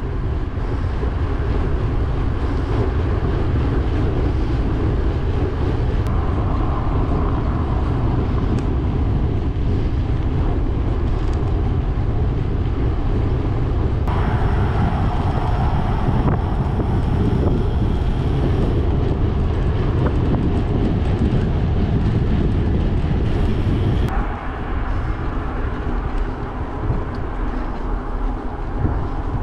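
Wind rushing over the microphone of a handlebar-mounted camera on a moving bicycle: a loud, steady low rumble. It changes abruptly in character twice, about 14 and 24 seconds in.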